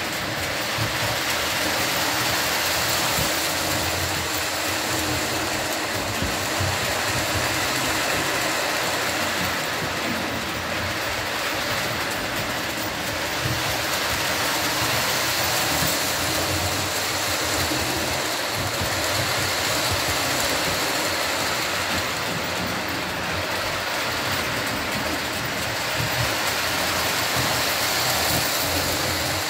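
Lionel model trains running around the layout track: a steady whir of the motors with the rumble and clatter of wheels on the rails.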